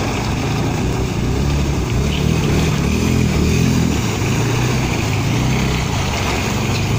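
Quad bike (ATV) engine revving up and down as it ploughs through shallow icy water, with water splashing and churning around the wheels.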